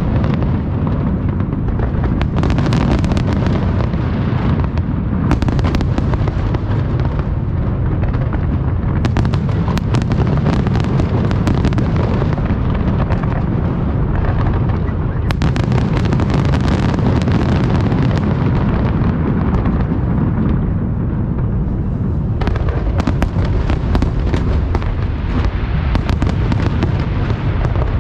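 Large aerial fireworks display: a dense, continuous barrage of shell bursts over a steady low rumble, with rapid crackling throughout.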